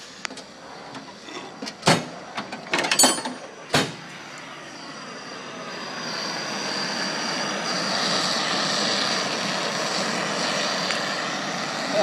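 A few sharp clicks and knocks, then a MAPP gas torch burning steadily against a combination padlock, a steady rushing hiss that grows louder from about five seconds in as the flame melts the lock's zinc body.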